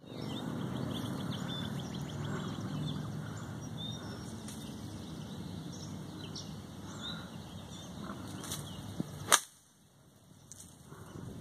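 A golf club (an 8-iron) striking the ball out of long, dry rough: a single sharp crack about nine seconds in. Before it there is a steady low rumble of wind on the microphone, with birds chirping.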